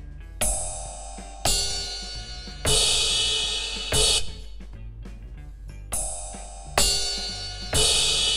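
Ride cymbal pad of an Aroma TDX-25S electronic drum kit, struck to bring out its three different sampled ride sounds, each ringing on. The last hit is grabbed by hand so the cymbal stops short (choked). The whole run plays twice.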